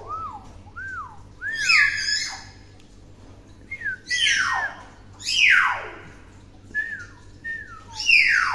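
Common hill myna whistling: a string of short, clear notes that each rise and fall, broken by four loud whistles that sweep steeply downward in pitch.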